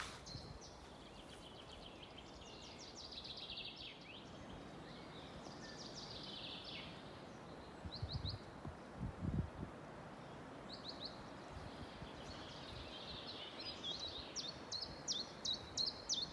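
Small songbirds singing in spring woodland: repeated short, high chirps and quick trills, busier near the end, over a faint steady outdoor hiss. A few low thumps about eight and nine seconds in.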